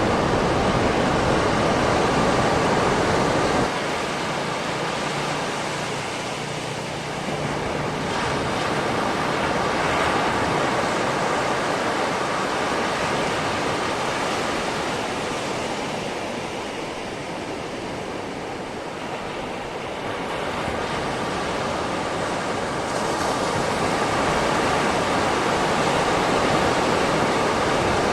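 Calm sea surf washing onto a beach: a steady rush of waves that swells and eases over several seconds, dropping suddenly in level about four seconds in.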